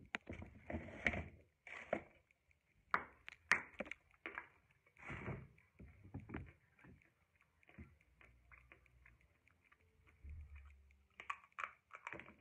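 A piece of blackboard-type chalk being bitten and chewed: irregular crunches and crackles, loudest in the first few seconds and again near the end, with softer chewing between.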